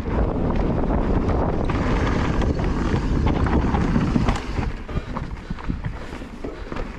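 Mountain bike descending a rough dirt trail: tyres rumbling over gravel and rocks with knocks and rattles, mixed with wind buffeting the microphone. About four seconds in it drops quieter as the bike rolls onto a wooden berm, leaving scattered clicks and knocks.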